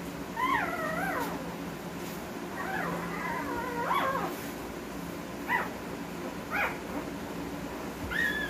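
Week-old Husky puppies whining and squealing: high, wavering cries, longer and rising and falling in the first half, then three short yelps spaced a second or more apart.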